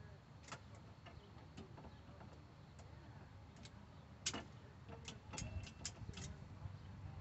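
Scattered light metallic clicks and taps of drum-brake hardware (shoes, springs, clips) being handled and fitted, one sharper click a little past four seconds in and a quicker run of clicks near the end.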